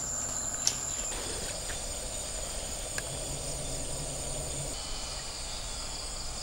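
Forest insects calling in a steady chorus of high-pitched drones. The loudest drone gives way to others about a second in, and a single sharp click comes just before that.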